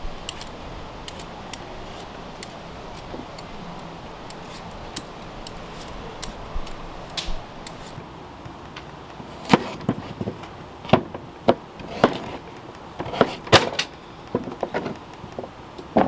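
Potatoes being prepped: faint scraping ticks of a vegetable peeler, then from about halfway a series of sharp taps as a knife cuts potatoes down onto a plastic cutting board.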